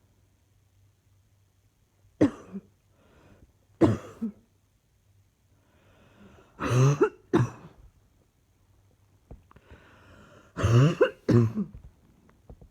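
A woman's persistent chesty cough: about six harsh coughs in three bouts, a single cough twice, then two pairs, with faint breaths drawn in between.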